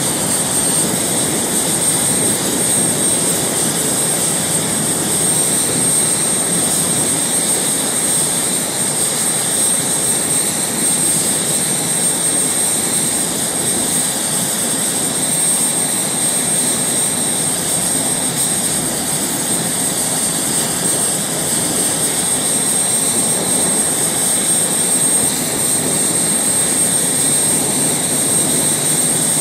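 F/A-18 Hornet jet fighters taxiing, their twin General Electric F404 turbofans running steadily: a continuous jet rumble with a thin, steady high whine over it.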